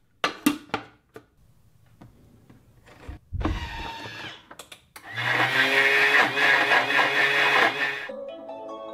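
Plastic lid clacking onto a Thermomix's steel mixing bowl in the first second, then a dull thump about three seconds in. About five seconds in the Thermomix motor runs at high speed for about three seconds, its blades pulverising table salt into powder salt, and it stops near the end.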